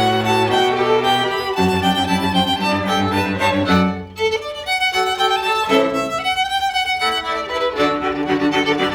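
Live bowed-string music, a violin over lower string parts, playing held notes in several voices. The playing thins briefly about four seconds in.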